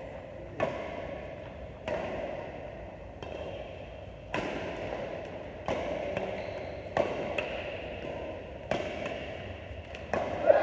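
Badminton rackets hitting a shuttlecock back and forth in a doubles rally: about seven sharp smacks, roughly one every second and a half, each ringing briefly in the hall.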